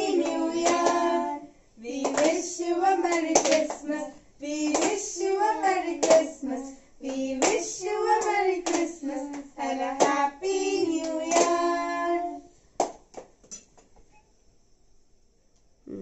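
A small group of young voices singing together to steady hand-clapping. The song and clapping stop about twelve seconds in, followed by a few scattered claps.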